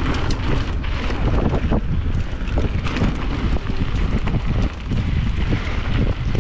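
Wind buffeting the microphone on a mountain-bike ride, over a continuous crackle of many sharp clicks from tyres running over loose gravel and rock.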